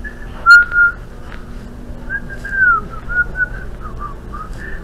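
A person whistling a tune: a held note about half a second in, then a run of short notes with a few slides in pitch, one falling.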